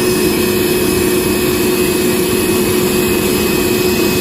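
DeWalt DCV580H cordless 2-gallon wet/dry vacuum running steadily: a constant motor whine over a loud rush of air.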